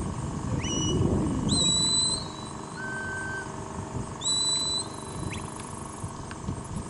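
Herding whistle commands to a working border collie: about five pure whistled notes. Most swoop up sharply and then hold steady, and one is lower and flat, all over a low rumbling background noise.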